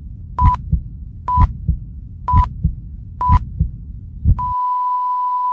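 Heartbeat sound effect with a heart-monitor beep: paired low thuds about once a second, each with a short high beep. About four seconds in, the thuds stop and the beep becomes one steady, unbroken flatline tone.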